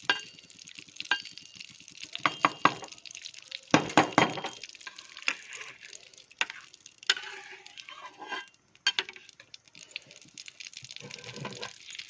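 A spoon stirring and knocking in a kadhai (Indian wok) of ghee being heated: irregular clinks and scrapes over a faint steady hiss, loudest about two and a half and four seconds in.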